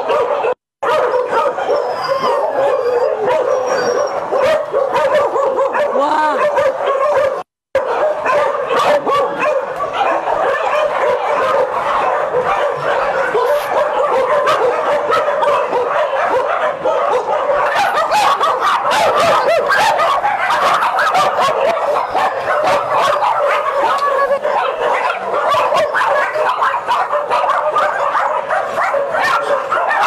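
A large group of dogs barking, yipping and whining all at once in a constant, loud din. Two very short drops to silence come near the start, and sharp barks become more frequent in the second half.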